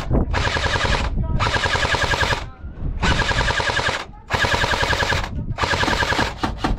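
Battery-powered airsoft rifle firing on full auto in about five bursts of roughly a second each, with short pauses between them: the quick clatter of the gearbox cycling and BBs being shot.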